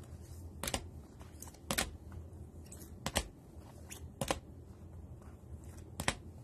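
Rigid plastic card top loaders clacking against each other as a stack of cards is flipped through one at a time: about five sharp clicks, roughly one a second.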